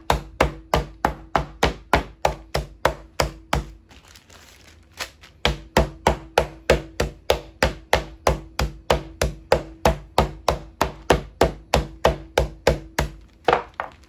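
Metal meat tenderizer mallet pounding chicken breast strips in a plastic zip-top bag on a wooden cutting board, in steady blows of about three a second. The pounding pauses for about a second around four seconds in, then carries on until just before the end.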